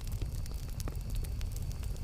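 Campfire burning: a steady low rumble of flame with a few small, sharp crackles scattered through it.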